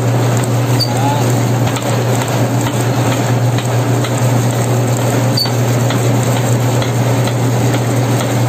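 Dough roller machine running with a steady hum as a slab of bread dough is fed between its two rollers.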